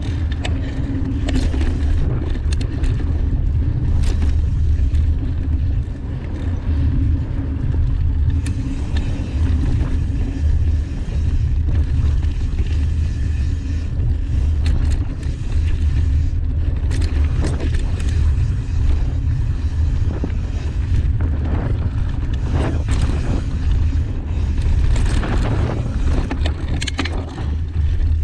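Mountain bike ridden along a dirt trail: a steady heavy rumble of wind on the microphone and tyres rolling over dirt, with scattered clicks and knocks as the bike rattles over bumps.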